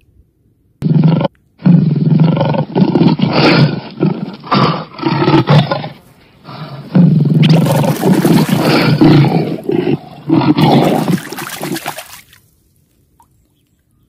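Lion roaring: a long bout of deep roars and grunts, one after another, that fade away about two seconds before the end.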